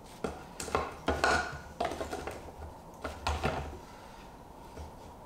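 Metal intercooler and its stand being handled and set against a small engine on a workbench: a string of clanks and knocks in the first three and a half seconds, then quieter handling.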